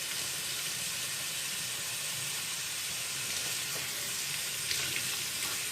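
Warm water running steadily from a kitchen tap into a container as it fills.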